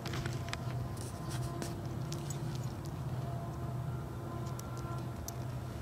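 Soft footsteps and the rustle of clothing against a handheld camera, with scattered light clicks, over a steady low hum.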